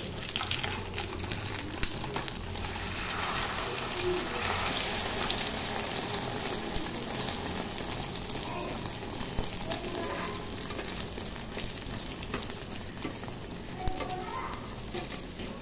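Egg with sliced chillies sizzling steadily in hot oil in a metal frying pan, with a metal spatula scraping and clicking against the pan as the egg is pressed and turned.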